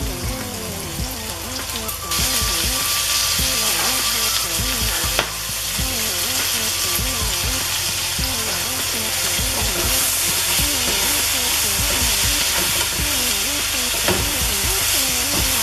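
Chicken pieces and fresh spinach sizzling in hot oil in a pot while being stirred with a wooden spatula. The sizzle grows louder about two seconds in, and there is a single knock about five seconds in.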